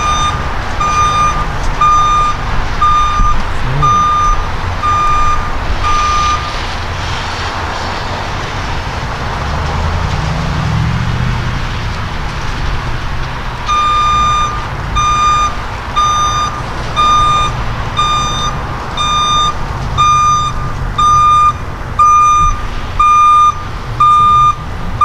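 Railroad grade-crossing warning bell ringing in even, clanging strokes, about three every two seconds, as the crossing is activated for an approaching train. It falls silent about six seconds in and starts ringing again about fourteen seconds in.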